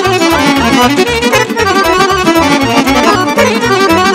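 Live band playing an instrumental break of a Romanian folk party song, the accordion carrying a fast, busy melody over a steady pulsing bass beat.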